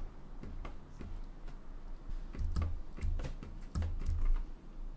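Computer keyboard keystrokes: about a dozen irregular taps, each with a light low thud.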